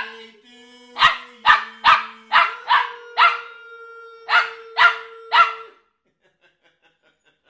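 Young Biewer terrier barking: about nine short, high, sharp barks in quick succession, with a brief gap after the sixth, over a faint steady held tone.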